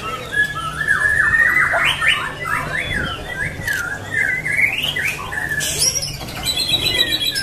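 Male white-rumped shama (murai batu) singing: a fast, unbroken run of short notes that sweep up and down in pitch.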